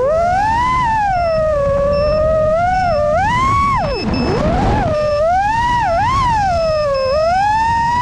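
Motors of a Nazgul 5 Evoque five-inch FPV racing quadcopter whining as the throttle changes, the pitch rising and falling, over the rush of prop wash. About halfway through the pitch drops steeply as the throttle is cut during a roll, then climbs again.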